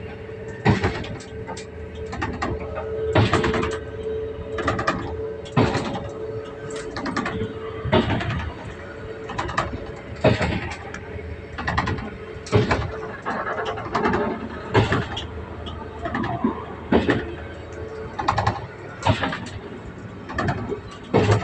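Regional train running, heard from inside the carriage: a steady rumble with a thin whine for the first several seconds, and sharp clacks about once a second, irregularly spaced.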